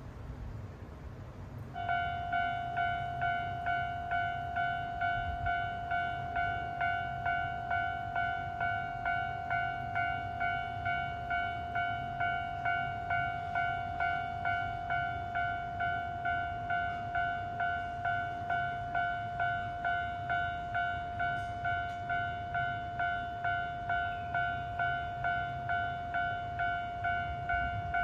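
Japanese level-crossing warning alarm ringing its repeated 'kan-kan' strokes at a steady, even rhythm, starting about two seconds in: the crossing is closed for an approaching train.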